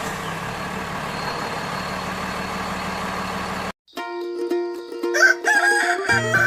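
A steady noisy hum that cuts off abruptly, then a rooster crowing once near the end.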